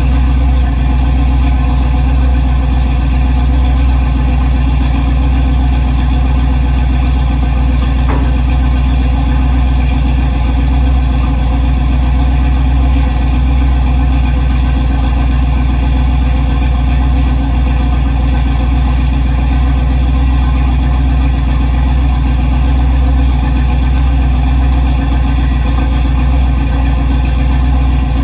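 Chevrolet 350 small-block V8 idling steadily, heard from behind the truck on what is plausibly its first run after the transmission and transfer case went in.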